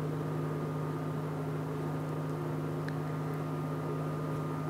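Sonifer induction cooktop running turned up high to heat a pan: a steady, even hum with a clear pitch.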